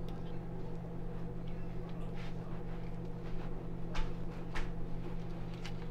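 Silicone spatula spreading cream cheese icing over cinnamon rolls in a foil pan: a few short scrapes and taps, the sharpest about four and four and a half seconds in, over a steady low hum.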